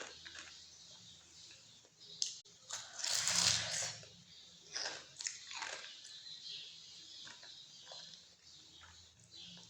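A person biting and chewing crunchy food close to the microphone, in irregular crunches, with a louder, longer crunch about three seconds in.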